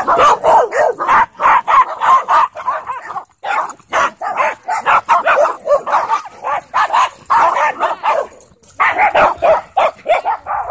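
Dogs barking and yipping in quick, near-continuous volleys, with a brief lull about a third of the way in and another past the three-quarter mark.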